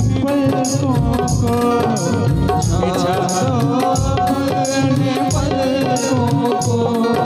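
Live Indian devotional bhajan music: an electronic keyboard plays a bending melody over tabla drumming, with a high jingling percussion keeping the beat.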